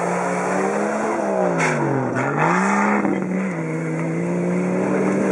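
Off-road Jeep CJ5 engine running hard at high revs. About a second in, the revs fall away over about a second, with a couple of knocks, then climb straight back and hold steady.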